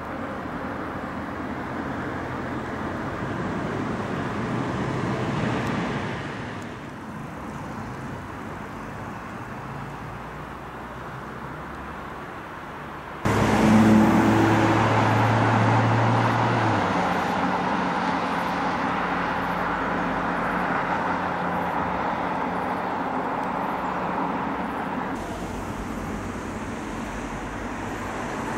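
Road traffic going by: cars passing, swelling and fading. Halfway through, the sound jumps suddenly louder, and a vehicle engine's low hum stands out for a few seconds.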